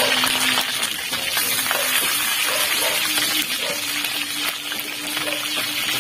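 Pieces of lapu-lapu (grouper) sizzling in hot oil in a wok, with a metal spatula scraping and turning them; the fish is being half-cooked by frying before broth goes in.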